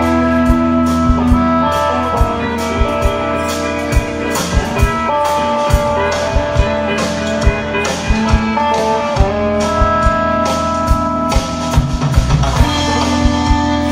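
Live blues band playing: electric guitars over a drum-kit beat.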